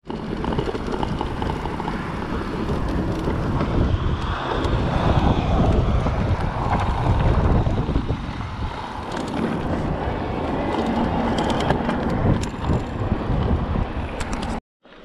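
Wind buffeting the microphone of a bike-mounted camera on a moving mountain bike, mixed with the rumble of tyres rolling over grass and asphalt and light rattles from the bike. The sound cuts out for a moment near the end.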